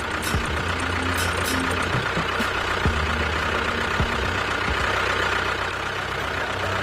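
A machine running steadily: a low hum under an even hiss, with a faint high whine.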